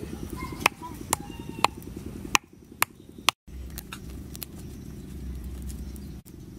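Wooden pestle pounding in a mortar, sharp knocks about twice a second, stopping about two and a half seconds in. A steady low rumble with a few faint clicks follows.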